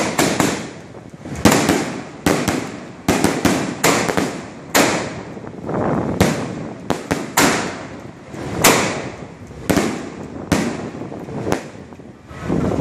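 Fireworks going off in a display: a string of separate sharp bangs at uneven intervals, roughly one a second, each trailing off in an echo.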